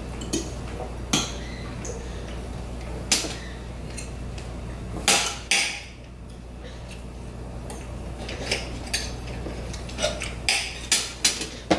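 Dishes and metal utensils clinking and knocking against each other in irregular sharp clinks, coming faster near the end, over a steady low hum.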